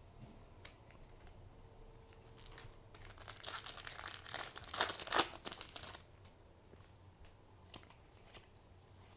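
Crinkly packaging wrapper being crumpled and torn by hand, in a burst of crackling from about two and a half to six seconds in, with a few light clicks elsewhere.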